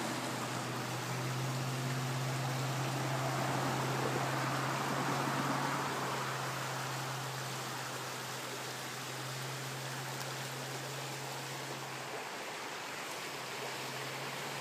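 Creek water running over a shallow riffle: a steady rushing noise, with a low steady hum underneath that stops near the end.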